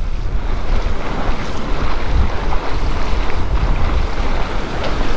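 Surf breaking in the shore dump with strong wind buffeting the microphone: a steady rushing noise over a deep rumble.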